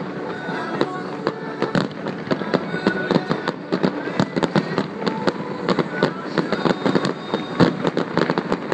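Aerial fireworks shells bursting in a rapid, irregular string of bangs and crackles.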